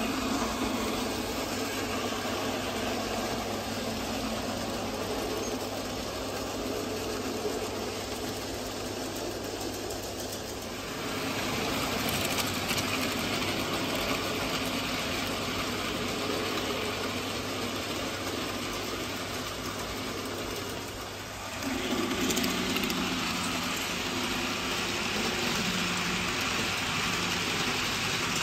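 N gauge model trains running along the track: the hum and rattle of their small electric motors and wheels. The sound shifts about eleven seconds in, and again about twenty-one seconds in, when a steadier pitched motor hum begins.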